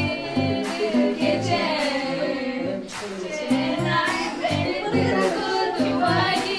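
Several young women singing a song together, over a regular low pulsing accompaniment.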